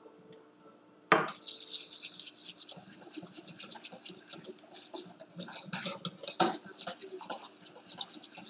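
Crepe batter being beaten in a mixing bowl: a sharp knock about a second in, then a fast, steady run of scratchy strokes as the utensil scrapes and clicks against the bowl, working out lumps.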